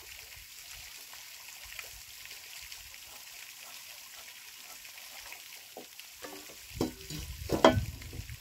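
Faint scratching and rustling of a pencil marking centres on decking timber. A few louder knocks come near the end.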